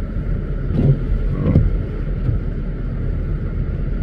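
GMC Yukon SUV driving, a steady low engine and road rumble with a couple of brief bumps about a second in.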